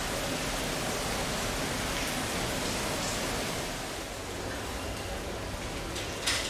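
Steady rushing hiss of heavy typhoon rain, with a short click near the end.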